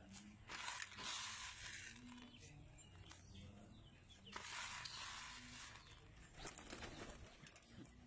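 Faint wing flaps and rustling from a flock of domestic pigeons feeding on the ground, with a few patches of soft hiss.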